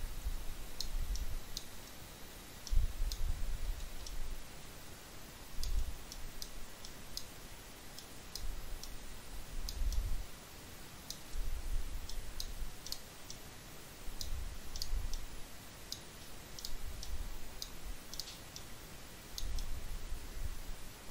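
Computer mouse buttons clicking at an irregular pace, a few clicks a second in clusters, with intermittent low rumbling bumps underneath.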